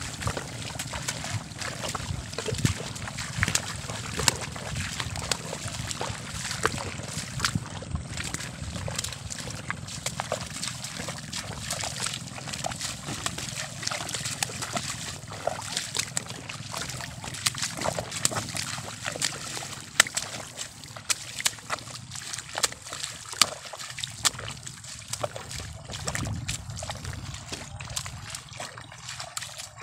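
Footsteps sloshing and splashing through the water and mud of a flooded rice paddy, step after step in an irregular rhythm, with now and then a bundle of rice seedlings splashing down into the water.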